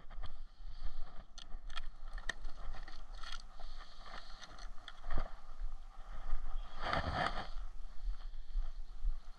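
Wind on the microphone, with light clicks and rattles of a clear plastic tackle box being opened and rummaged through for hooks and lures, and a short burst of rustling handling noise about seven seconds in.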